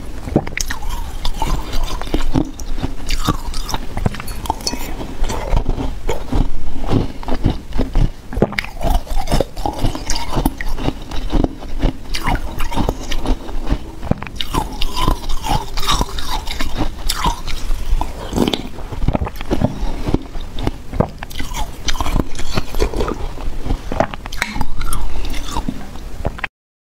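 Ice being bitten and chewed close to a clip-on microphone: a dense, irregular run of crisp cracks and crunches that stops abruptly near the end.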